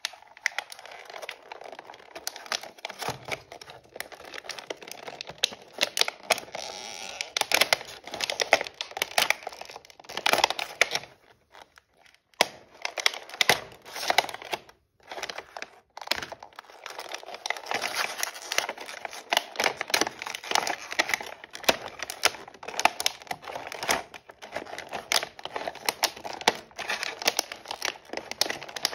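Clear plastic blister packaging crinkling and crackling as hands pull at it and work the toy pizza set's pieces free: a dense run of crisp clicks and rustles, with two brief pauses about midway.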